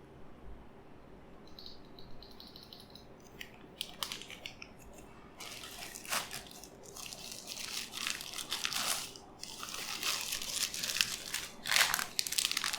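Plastic packaging crinkling and rustling as it is handled. It starts faint and sparse, then turns into a busy run of crackles over the second half, loudest near the end.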